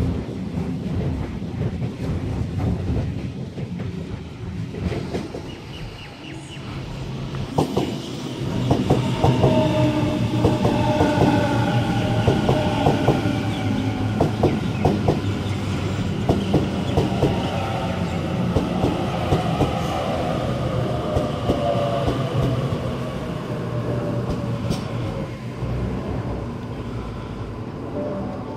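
Electric suburban train moving along a station platform: a steady rumble, with wheels clicking over the rail joints and a motor whine that slowly falls in pitch from about a third of the way in.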